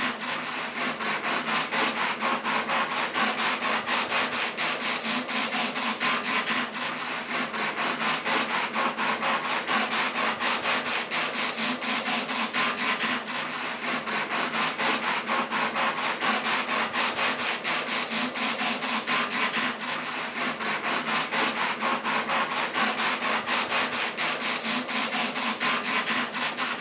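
Braille embosser printing, its pins punching dots into paper in a rapid, continuous rattle of strikes that pulses slightly in loudness.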